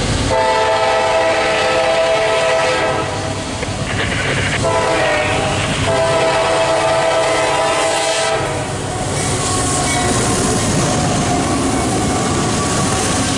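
CSX freight locomotive's air horn sounding three blasts, long, short and long, as the train approaches the crossing, followed by the locomotive running past close by with the rumble of its engine and wheels.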